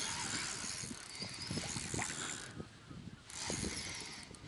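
Spinning reel being cranked to wind in line against a hooked fish, its gears clicking in a rapid ratcheting run. There is a brief pause a little past halfway.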